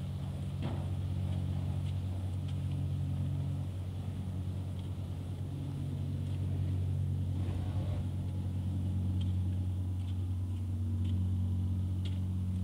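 Hörmann WA300 R S4 electric operator driving a Decotherm A SB industrial roller door closed: a steady low motor hum as the slatted curtain rolls down, with a few faint light clicks.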